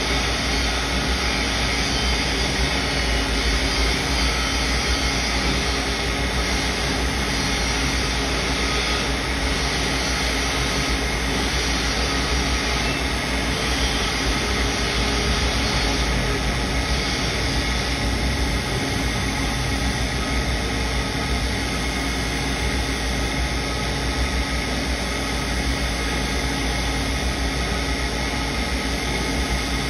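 Belt-driven sharpening wheel running steadily while a Damascus steel chef knife blade is ground against its edge, giving a constant whirring hiss.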